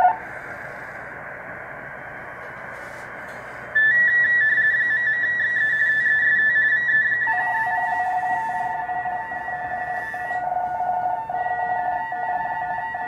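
Collins 75S-1 receiver audio on the 20-metre digital-mode frequency: a few seconds of band hiss, then radioteletype (RTTY) data signals come in about four seconds in as a pair of warbling two-tone whistles, with a second, lower-pitched RTTY signal joining a few seconds later.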